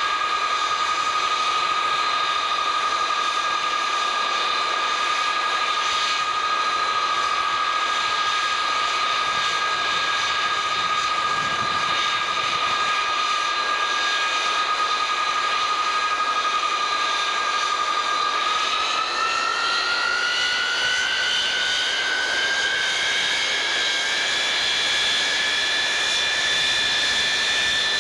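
KC-135A's Pratt & Whitney J57 turbojets running during a ground engine run, a high steady whine over jet roar. About two-thirds of the way through, the whine climbs steadily in pitch as the engines spool up.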